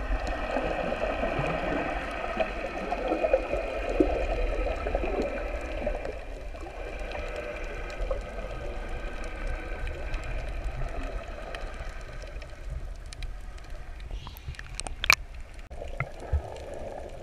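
Underwater sound picked up through a GoPro's waterproof housing: water gurgling and rushing around the camera over a low rumble, with a steady whine of several tones that fades after about twelve seconds. A single sharp knock comes near the end.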